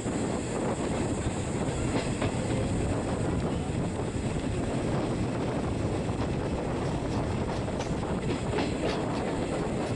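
Express passenger train running at speed, heard from an open window of a coach: a steady rumble of steel wheels on the rails, with a few sharper clicks near the end.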